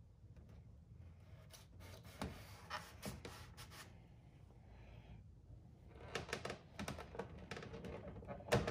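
Faint, scattered scratching and light knocks in a few loose clusters, the loudest near the end: hands tearing and pressing painter's tape to hold a carbon fiber rear diffuser in place against the bumper.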